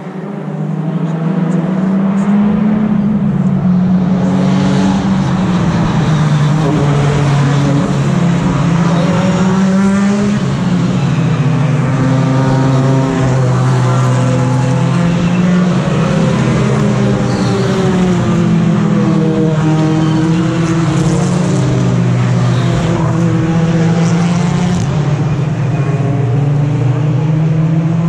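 BTCC touring cars racing past in a continuous stream, their two-litre turbocharged four-cylinder engines overlapping, each note rising and falling through gear changes. It is loud and unbroken, building up about a second in.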